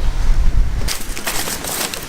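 Wind buffeting the microphone, with a low rumble that eases off about a second in, followed by a few short scuffing noises.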